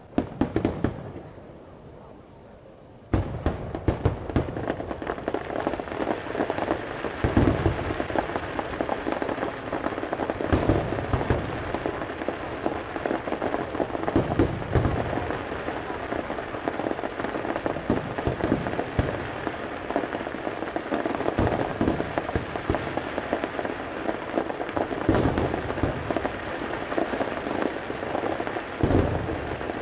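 Aerial fireworks bursting: a bang right at the start, then from about three seconds in a dense, continuous crackle of bursting shells with repeated deeper booms.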